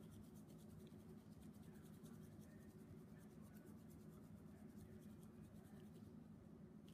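Faint, fast scratchy rattle of a spice shaker dusting dry rub onto raw pork ribs, over a low steady room hum; the rattle stops near the end.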